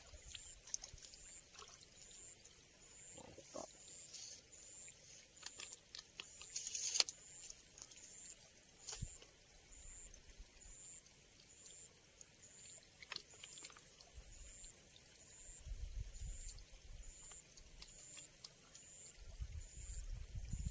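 Insects trilling in a steady high-pitched chorus that swells over a few seconds and then drops back, several times over. A few sharp clicks, the loudest about seven seconds in, and a low wind rumble on the microphone near the end.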